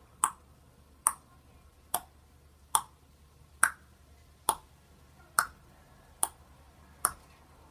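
Sharp clicks repeating at a steady pace, nine of them, a little more than one a second, each with a brief ringing tail.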